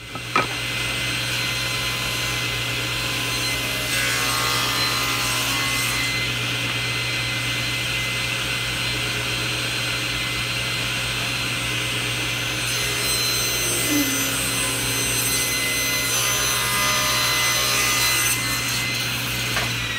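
SawStop table saw running with its blade tilted to 45 degrees, bevel-ripping a length of crown molding. The blade sound changes as it cuts wood, about four seconds in and again from about thirteen seconds, and the saw begins to spin down at the very end.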